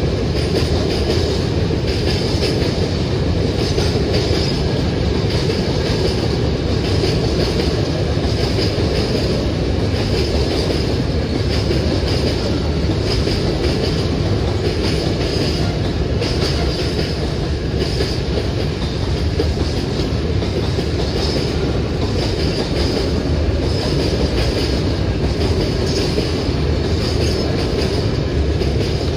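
Freight train wagons rolling steadily past over a level crossing: a continuous heavy rumble with the clickety-clack of wheels over the rail joints.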